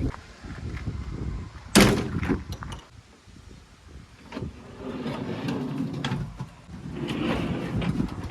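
JCB 3DX backhoe loader at work: a single sharp bang about two seconds in, then its diesel engine running unevenly with scattered knocks, louder again in the second half.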